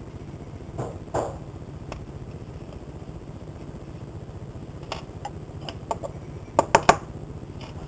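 Small metal clicks and taps from handling a Zippo lighter's insert while the flint spring screw is unscrewed: scattered single clicks, then a quick cluster of three near the end, over a steady low hum.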